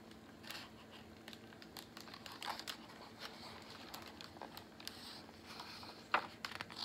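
Faint rustling and crinkling of a picture book's paper pages being handled, with a cluster of louder crackles near the end as a page is taken hold of to be turned.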